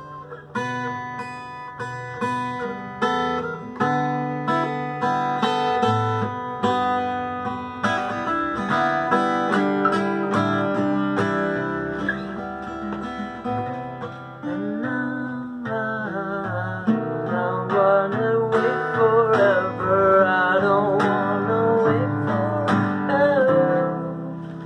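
Solo acoustic guitar playing a song's chord progression, with picked and strummed chords. In the second half a wordless voice hums a wavering melody over it.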